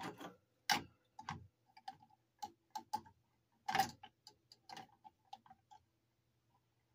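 Kinetic pendulum desk toy swinging, its metal parts giving light, uneven clicks and ticks that thin out and stop about six seconds in.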